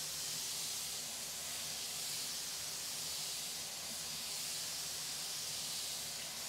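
Mushrooms sizzling in a frying pan: a steady, even hiss.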